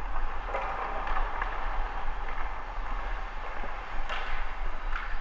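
Ice hockey practice sounds: a steady hiss of skate blades scraping over the ice, with a few sharp clacks of stick on puck, one about half a second in and two near the end.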